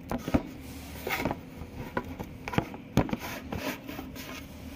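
Handling noise: a few scattered light knocks and rubbing sounds, over a faint steady hum.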